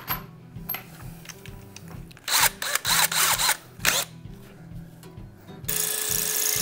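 Cordless drill with a 5/32 masonry bit boring through a rail hole into a concrete wall for an anchor: a few short bursts about two seconds in, then steady drilling from near the end. Background music with a low beat underneath.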